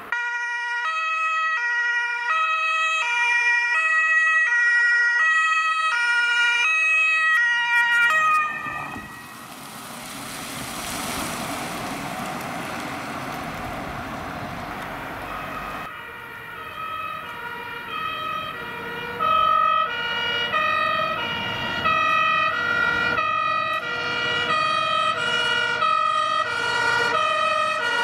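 German emergency vehicles' two-tone sirens (Martinshorn) switching steadily between a high and a low tone. The first siren stops suddenly about 8 s in, giving way to a stretch of vehicle engine and road noise. From about 16 s, more than one two-tone siren sounds at once, out of step with each other and getting louder, as fire engines approach.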